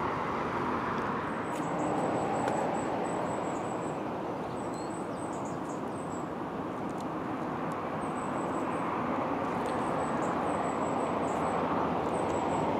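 Steady hum of distant road traffic, with a small bird repeating short, high, thin calls and a few faint clicks and rustles of gloved hands breaking up soil and rotten newspaper.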